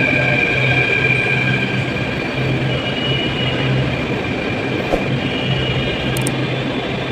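Delhi Metro train running along the platform as it pulls into the station: a steady rumble of wheels and motors with a high whine, strongest in the first couple of seconds.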